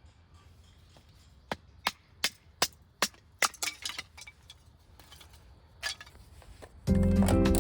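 Sharp wooden chopping strikes: about six in quick succession roughly a third of a second apart, a few lighter knocks, then one more strike. Background music comes in just before the end.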